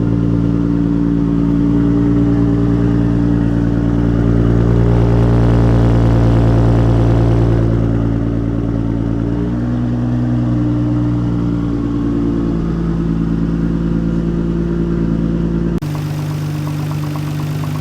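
Nissan R32 Skyline GT-R's twin-turbo RB26 inline-six idling steadily while it warms up. Its idle settles a little lower about halfway through. The engine has a mild rod knock.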